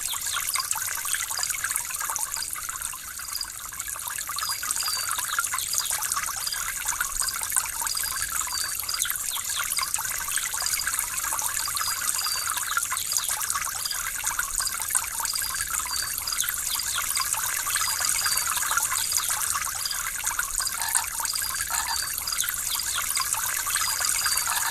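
Running water trickling steadily, a bright even splashing made of many small splashes, with almost no low rumble.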